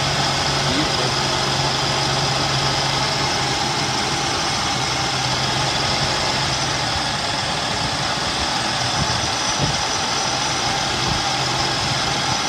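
A 1987 Lincoln Town Car's 5.0-litre fuel-injected V8 idling steadily, heard from over the open engine bay. The idle is even, with its earlier idle problem cured by newly replaced vacuum lines.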